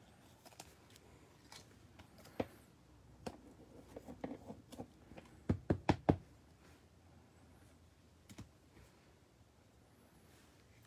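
Light clicks and taps of trading cards and hard plastic card holders being handled and set down on a table, with a quick run of sharper clicks about halfway through.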